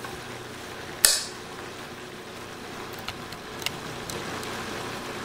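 Chicken frying in oil inside the closed Cook's Companion flip pan: a steady sizzle. There is one sharp click about a second in and a few light ticks later.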